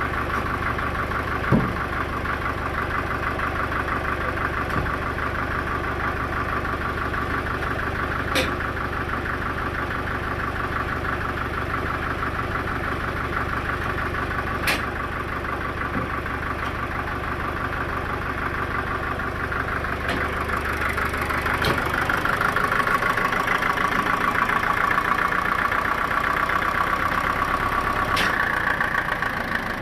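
Sawmill engine running steadily, with a few sharp knocks. About 22 seconds in its sound shifts: the low hum fades and a higher-pitched note grows louder.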